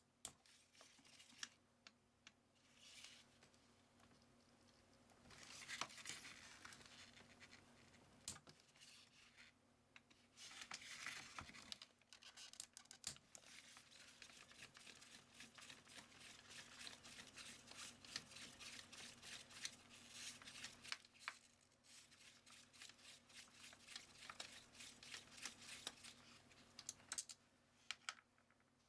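Faint scraping and rustling of hand tools and plastic scooter parts being worked on. Most of the second half is long runs of quick, regular clicking.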